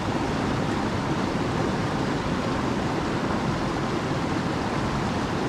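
Steady rush of a fast-flowing mountain river, an even noise with no breaks.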